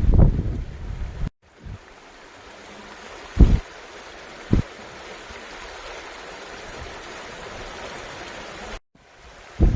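Steady rushing of a mountain stream, with two brief low bumps of wind on the microphone. A short stretch of low wind buffeting on the microphone comes at the start.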